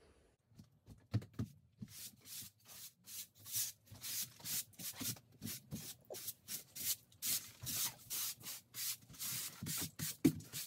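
Quick, repeated brushing strokes of a hand-held cleaning tool over a fabric bed cover, about two to three strokes a second, starting about two seconds in.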